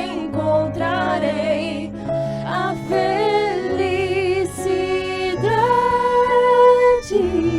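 Slow ballad music: a melody in long held notes with vibrato over sustained bass notes that change step by step.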